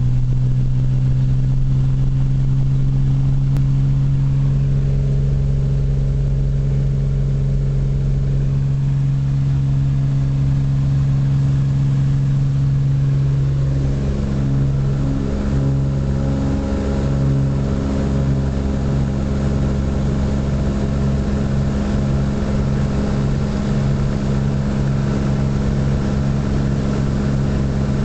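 Engine and propeller of a Cessna light aircraft at takeoff power, heard from inside the cabin during the takeoff roll: a loud, steady drone that about halfway through turns into a pulsing, beating drone with more high tones.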